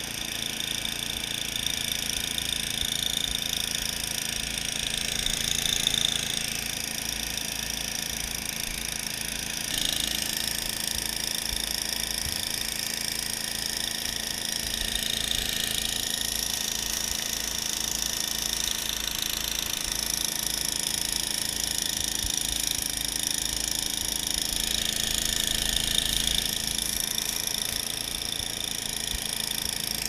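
Two-stage snowblower's engine running steadily under load as it drives through deep snow, with a constant high hiss over the engine's even low pulse.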